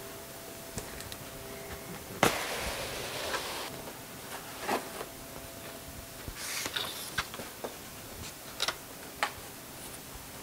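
Cardboard graphics-card packaging being handled: a knock about two seconds in, then a sliding rustle as the inner box comes out of its sleeve, followed by scattered taps and rustles of the box lid and foam.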